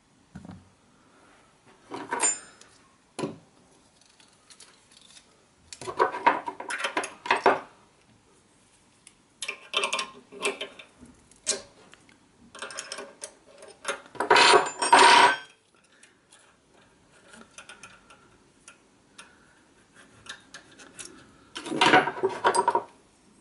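Metal spanners clinking and scraping against the rocker-arm adjusting nuts of a small Honda GX engine while the valve clearance is being set, in several short bursts of clatter with quiet gaps between.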